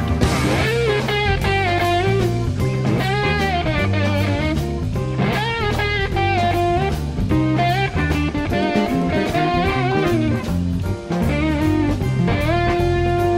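Electric slide guitar on a Gibson SG soloing in a blues-rock style over bass and drums. The notes glide up and down between held pitches, and a long sustained note starts near the end.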